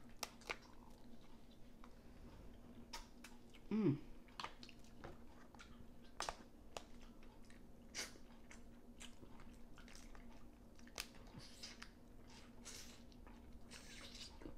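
Steamed blue crab being eaten: scattered sharp cracks and crunches of shell being broken, with chewing between them. A short hummed 'mm' from a voice comes about four seconds in.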